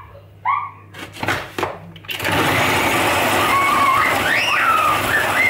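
Small electric food processor running steadily as it chops red chillies for sambal, starting about two seconds in after a few sharp clicks. A high voice rises and falls over the motor noise.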